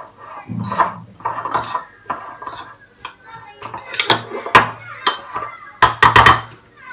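Metal spoon scraping and clinking against a bowl while rice stuffing is mixed, with a few sharp clinks in the second half.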